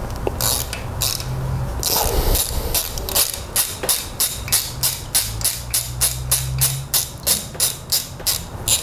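Ratchet wrench with an 8 mm Allen bit clicking as it backs out the camshaft sprocket bolt on a BMW M20 engine: a few scattered clicks, then from about three seconds in a steady run of about four clicks a second. Background music with a low bass line plays underneath.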